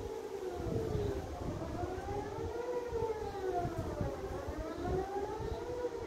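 Distant outdoor tornado warning siren sounding during its monthly test, a wail whose pitch rises and falls in slow overlapping arcs every few seconds.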